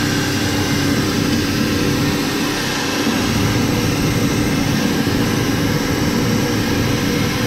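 Air suspension dump valve exhausting the air bags of a Peterbilt air-leaf suspension: a steady, loud rush of escaping air with a low rumble underneath, as the bags empty and the truck lowers.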